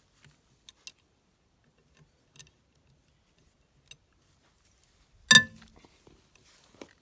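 Scattered light clicks of metal tools being handled, then one loud, sharp metallic clank with a brief ring about five seconds in, like a spanner or socket set down on a hard surface.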